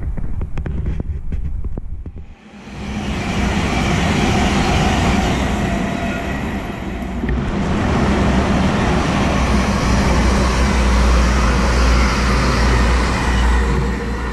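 High-speed electric trains passing on the East Coast Main Line: an LNER InterCity 225 set of Mark 4 coaches rushes by, joined by an Azuma on another track. The rushing wheel-and-air noise builds about two and a half seconds in, stays loud, and has a heavy low rumble in the second half.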